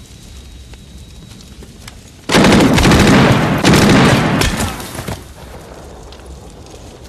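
Movie battle sound: a sudden, very loud burst of rapid gunfire with an explosion at a German half-track, starting about two seconds in and lasting about three seconds before dying away.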